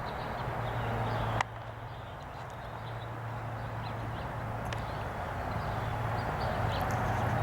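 Steady background hiss with a low hum, broken by a single sharp click about a second and a half in, after which it is quieter; a few faint ticks follow.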